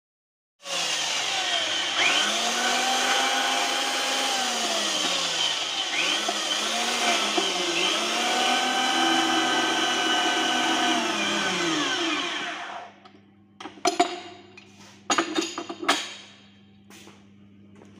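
Electric pipe-threading machine running, its die head cutting a thread on a galvanized iron pipe, with a motor whine that rises and falls in slow swells. The machine stops about thirteen seconds in, and a few sharp metallic knocks and clatters follow over a low hum.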